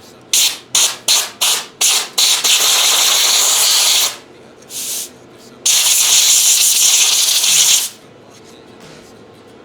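Compressed air blown in bursts to clear dust from a graphics card: five quick puffs, then a blast of nearly two seconds, a short puff, and a final blast of about two seconds that cuts off near eight seconds in.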